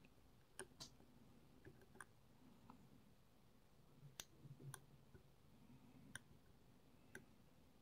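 Faint, irregular clicks of a dimple lock pick working the pins of a seven-pin dimple lock cylinder held under heavy turning tension, about a dozen ticks spread unevenly over several seconds.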